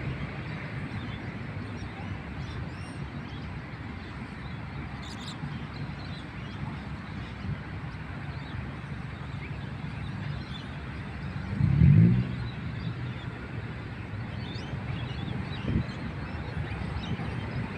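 Outdoor ambience: a steady low rumble of wind and distant traffic with faint bird calls, and one brief low thump about twelve seconds in.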